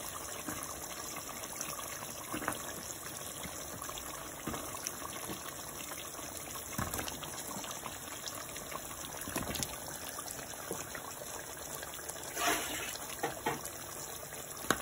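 A steel pot of mutton curry simmering with a steady bubbling hiss, broken several times by short knocks as chunks of raw potato are dropped into it.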